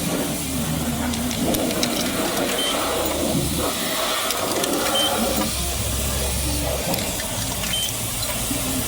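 High-pressure spray wand at a self-serve car wash spraying water, a steady hiss over the low hum of the wash machinery.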